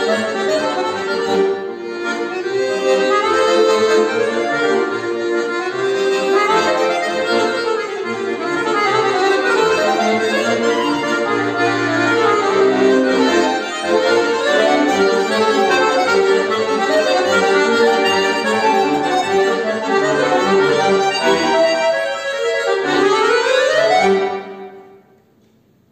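Button accordion (bayan) played solo: fast, dense runs of notes over sustained chords, closing the piece with a quick upward run. The music stops about a second before the end.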